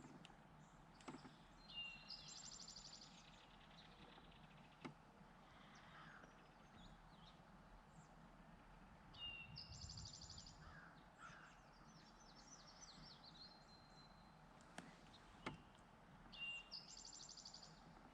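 Faint songbird singing the same short song three times, about seven seconds apart: a lower note followed by a fast, high trill, with a different high phrase between the second and third songs. A few faint clicks are heard over a quiet background hiss.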